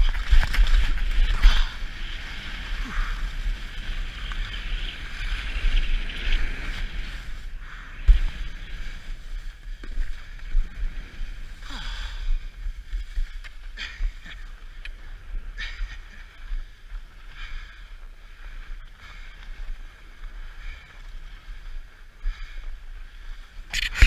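Skis hissing and scraping over thin, hard-packed snow on a downhill run, loudest in the first few seconds, with wind buffeting the camera microphone and a single knock about eight seconds in.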